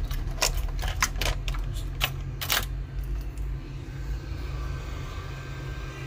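Hot air rework station blowing steadily while it heats a phone's circuit board to desolder the charging port. A quick run of sharp clicks and taps sounds through the first three seconds or so.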